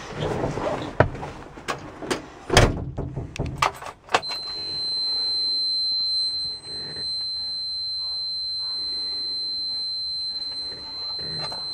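A few knocks and thumps of getting into a Mack truck's cab. About four seconds in, the dash low-air-pressure warning buzzer comes on with the ignition: one steady high-pitched tone that keeps sounding, the sign that the air brake system has not yet built up pressure.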